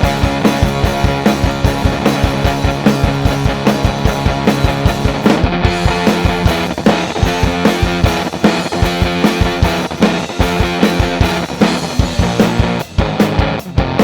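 Distorted electric guitar playing a sustained rock riff over a drum kit keeping a steady beat.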